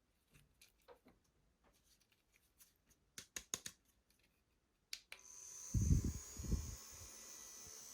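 Small plastic clicks and taps of a handheld mini fan being handled, then a click about five seconds in and the fan's motor starts running with a steady whir and a high whine. Low rumbles of its air hitting the microphone follow for about a second.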